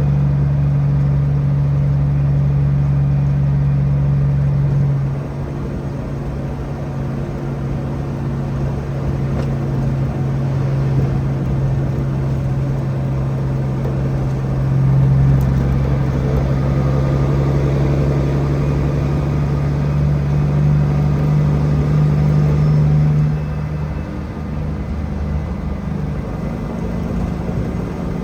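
An engine running steadily. Its sound drops about five seconds in, picks up again around fifteen seconds, and drops once more near the end.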